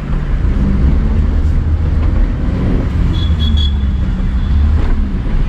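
Car engine and road noise heard from inside the cabin while driving, a steady low rumble with the engine hum rising and falling gently. A short high tone sounds briefly about three seconds in.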